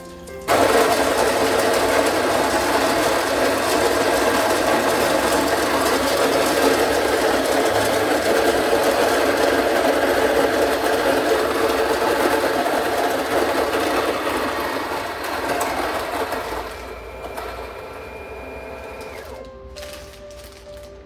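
WPM ZD-17W electric coffee grinder starting suddenly and grinding beans for about sixteen seconds. The grinding then thins out as the beans run through, and the motor spins on with a steady higher whine for a couple of seconds before switching off near the end.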